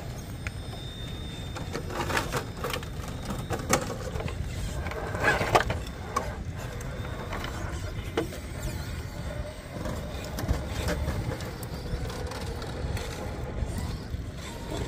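Redcat Ascent RC rock crawler working its way over rocks: a faint whine from its electric motor and gears, with the tyres and chassis knocking and scraping on the rock several times, loudest about five seconds in, over a steady low rumble.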